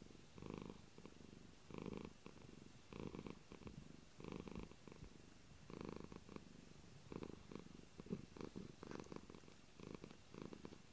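Tabby cat purring close to the microphone, a low rumble that swells with each breath about once every second and a quarter. A single small click a little past the middle.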